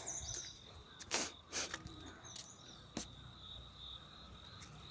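Crickets calling in a steady high-pitched trill. A few short scuffs break in about a second and a half in and again at three seconds.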